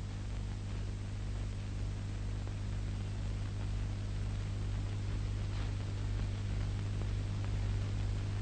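Steady low electrical hum with hiss, the background noise of an old film soundtrack.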